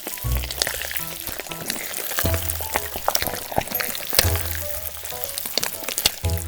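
Food sizzling and crackling in a small hot pan, a dense, steady crackle with many tiny pops, over background music with a repeating bass line.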